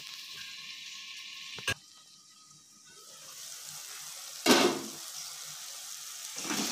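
Chopped onion and tomato in oil sizzling in a pan, faint at first under a steel lid, then a louder, brighter sizzle that rises after about three seconds. A sharp knock comes about four and a half seconds in.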